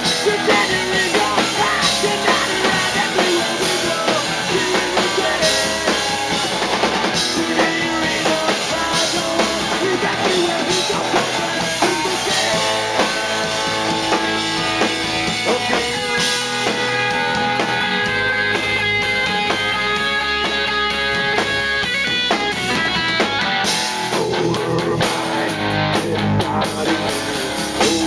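Live punk rock band playing: electric guitar, bass guitar and drum kit.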